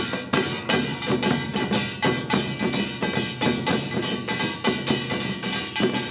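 Traditional Korean percussion ensemble playing a fast, even rhythm: strong drum strokes about two to three a second, with quicker strokes between and a steady ringing above.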